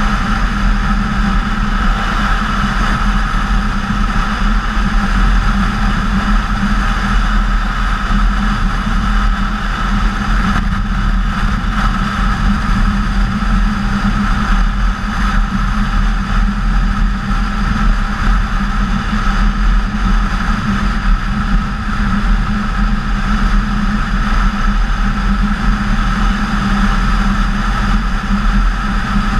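A BMW K1600GTL touring motorcycle cruising at a steady speed: wind rush over the microphone mixed with the inline-six engine's drone, even and loud throughout, without revving or gear changes.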